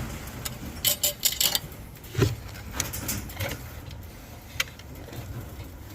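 Rattling and knocking from the aviary nest box being opened for a look inside: a quick metallic jingle about a second in, then a sharp knock, with a single click later.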